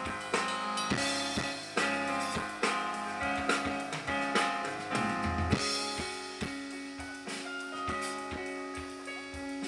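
Live band playing an instrumental passage: keyboard chords and held notes from a Yamaha stage keyboard over a drum kit keeping a steady beat of kick and snare hits.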